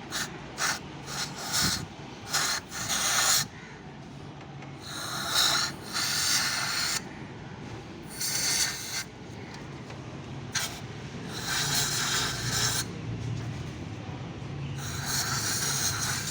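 Aerosol carburettor cleaner sprayed into a throttle body to wash off carbon deposits, hissing in several bursts of one to two seconds, with shorter puffs in the first few seconds. A steady low hum runs underneath.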